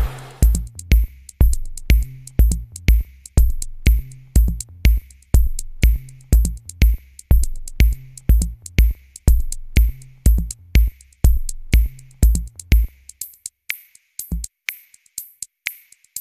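Electronic music: a drum-machine beat with a heavy kick about twice a second, sharp clicks and a low bass line. About 13 seconds in, the kick and bass drop out, leaving a few scattered clicks.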